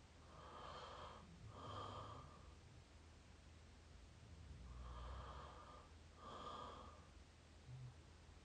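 A person snoring softly through the open mouth close to the microphone: two slow breaths, each a drawn-in breath followed straight away by an out-breath.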